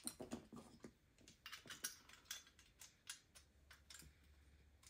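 Faint, irregular light clicking of square metal shafts being pushed into VEX drive motors and wiggled until they seat, the clicks thinning out after about three seconds.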